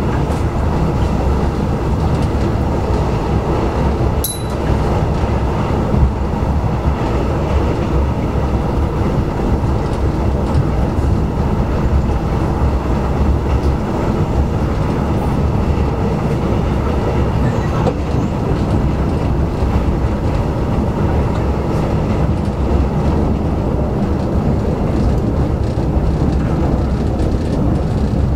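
Malayan Railway train running steadily, a continuous low rumble of the train on the track, with one sharp click about four seconds in.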